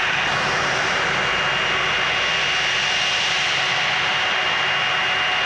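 Jet engines of an Airbus A330 running at idle as it taxis: a steady rush with a thin high whine on top, not rising or falling.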